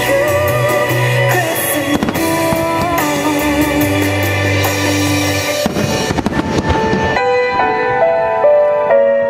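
Aerial firework shells bursting and crackling in quick succession over the music played for the display. The bursts thin out about seven seconds in, leaving mostly the music, and pick up again right at the end.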